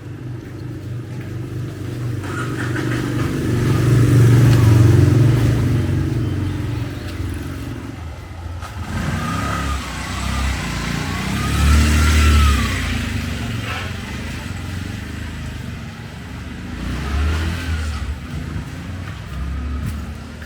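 Motorbike engine and road traffic. The sound swells to its loudest about four to five seconds in and rises again around twelve seconds, with a wavering whine over the engine.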